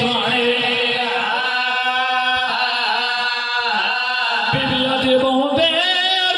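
A man's voice chanting a mournful Shia lament (zakiri recitation) through a microphone and PA loudspeakers, in long, wavering held notes with short breaks for breath.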